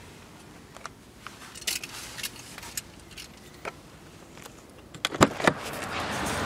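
Light clicks and handling noises inside a car cabin, then two sharp clacks from the car door latch about five seconds in, followed by a steady hiss of outside air as the door swings open.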